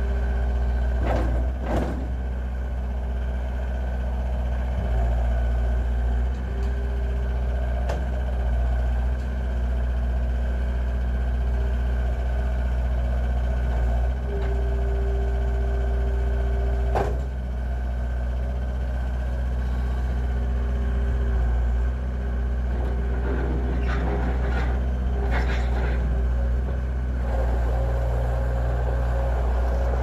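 John Deere 320 skid steer's turbo diesel engine running steadily as the loader drives and works its arms and bucket, with a whine that comes and goes, strongest about halfway through. A few sharp knocks and clanks come near the start, halfway through and late on.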